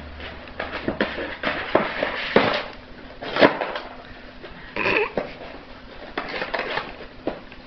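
West Highland white terrier tearing and chewing at a carton: irregular crackling, rustling and sharp clicks of the packaging, with a brief squeak near five seconds in.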